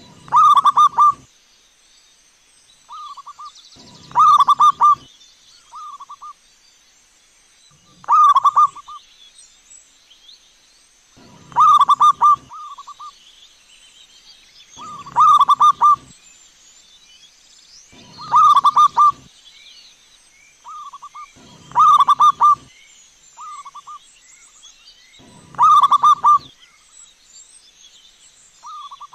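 Zebra dove (perkutut) cooing its rapid trilled phrase, a loud call about every three and a half seconds, with fainter, shorter coos in between.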